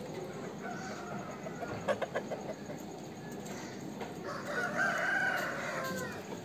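Aseel rooster crowing once, starting about four seconds in and lasting about a second and a half, its pitch falling away at the end. Softer clucking and a few short knocks come before the crow.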